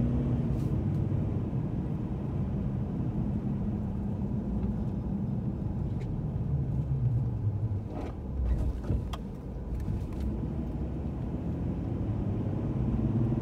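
Car running at low speed, heard from inside the cabin: a steady low engine and road rumble, with a couple of brief clicks about eight and nine seconds in.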